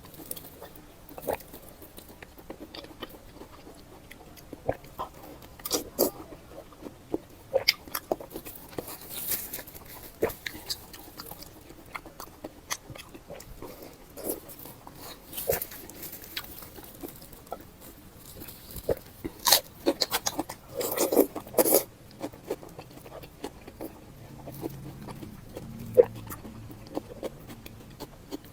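Close-up eating sounds: chewing with irregular wet smacks and bites, and a dense run of them about three-quarters of the way through.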